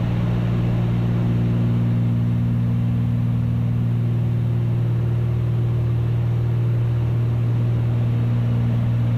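Cabin drone of a twin-engine Cessna 310's piston engines in steady cruise: a constant low hum with several steady tones above it, unchanging throughout.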